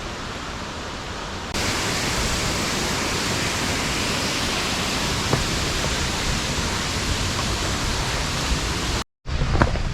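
Waterfall rushing: a steady, full-bodied roar of falling water that steps up louder about a second and a half in. It cuts out briefly near the end, followed by a few sharp clicks.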